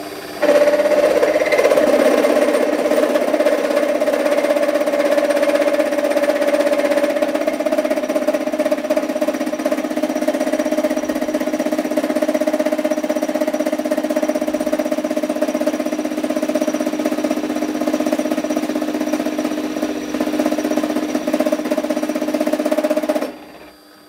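A 1-inch end mill turning at about 1,000 RPM in a Warco WM180 mini lathe's spindle, milling through aluminium plate under a slow hand feed. It makes a loud, steady cutting whine that starts suddenly about half a second in and stops abruptly about a second before the end. The owner expects some chatter from this setup, which is not rigid enough for milling.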